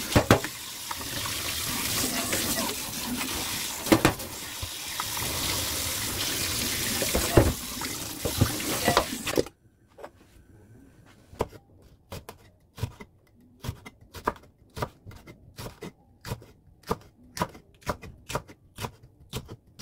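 Tap water running into a stainless steel sink as oysters are rinsed in a mesh strainer, with a few knocks of the strainer against the bowl. It stops suddenly about halfway through, and a knife then slices green chili peppers on a wooden cutting board in steady cuts, about two a second.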